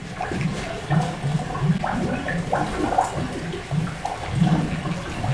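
Bubbling water sound: a dense run of quick, irregular blips.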